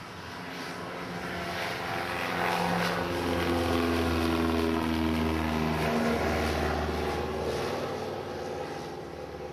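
Cessna 152 light plane with a four-cylinder piston engine and propeller, flying past. The sound swells to its loudest in the middle, then fades as the plane moves away.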